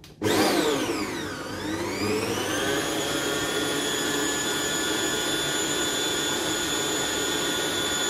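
Stand mixer's electric motor kneading bread dough in a stainless steel bowl. It starts suddenly, its whine falls and then climbs back in pitch over the first three seconds, and then it runs steadily.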